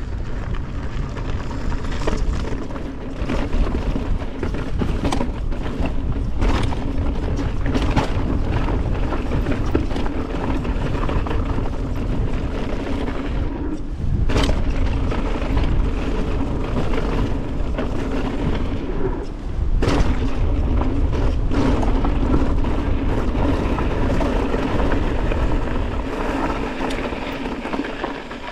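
Mountain bike rolling fast down a dirt and gravel trail: tyres rumbling on the ground with wind buffeting the microphone, and sharp knocks and rattles from the bike as it hits bumps, several times.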